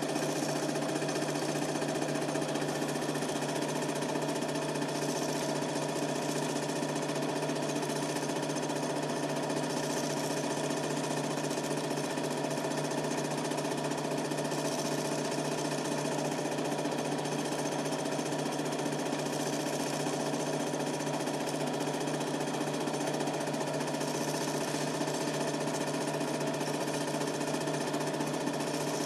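Super 8 film projector running: a steady, rapid mechanical clatter of the film transport over a constant motor hum.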